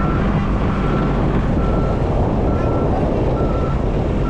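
A backup alarm beeping steadily, short beeps about once a second, over the low, steady running of a heavy diesel engine; a machine or truck is reversing.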